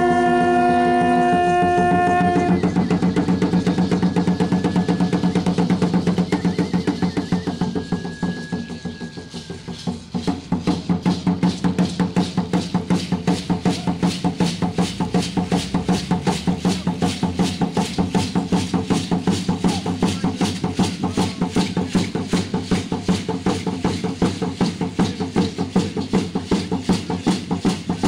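A conch shell trumpet holds one long note that ends about two and a half seconds in. Then tall upright wooden huehuetl drums take up a dance beat, which thins out for a moment around the middle and comes back as a fast, even pulse of about four strokes a second, with the dancers' ankle rattles.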